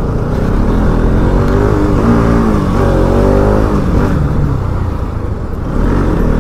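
Motorcycle engine running under way, its pitch rising and falling a few times in the middle as the revs change, over a steady low rumble.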